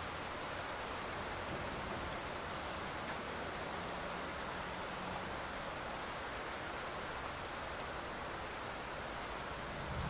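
Steady rain falling, a constant even hiss with scattered sharp drop ticks.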